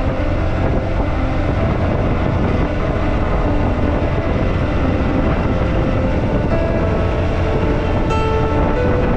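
Steady, loud rumble of road and wind noise from a vehicle travelling along a highway.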